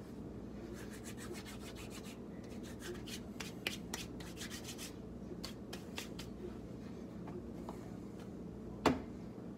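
Hands rubbing together to crumble dry seasoning over a frying pan: a quick run of dry rustling scrapes in the first half, sparser ones after, and one sharp tap near the end.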